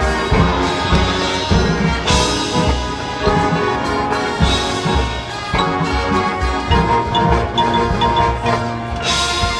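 High school marching band playing live: brass and winds over drums, with front-ensemble mallet percussion. Three bright crashing accents come about two seconds in, near the middle and near the end.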